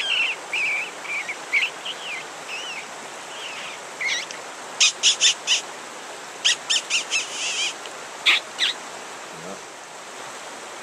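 A small animal chirping and squeaking in short high calls, some sliding up and down in pitch. About halfway through come two quick runs of sharp chips, several a second, followed by two single chips.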